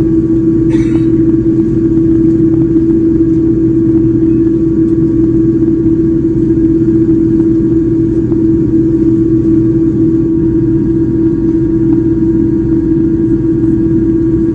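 Jet engine noise inside the cabin of a Boeing 787-9 airliner: a loud, steady rumble with a strong, unchanging hum tone.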